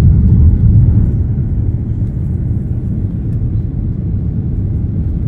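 Steady low rumble of jet airliner cabin noise, engines and airflow, heard from a window seat as the plane descends. It eases off a little about a second in.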